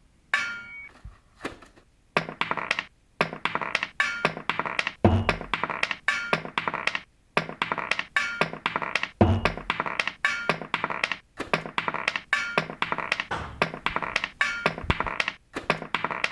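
A rhythmic run of short knocks and thunks, a few a second, each with a brief ringing tail, cut together into an instrumental beat from found noises.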